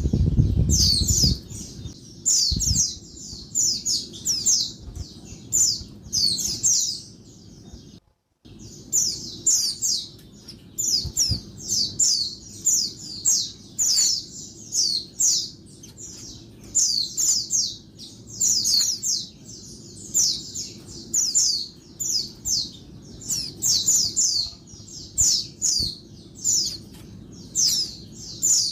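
Female white-eye (pleci) giving a noisy run of quick, high chattering chirps, two or three calls a second. The sound drops out briefly about eight seconds in. A low rumble sits under the first second or so.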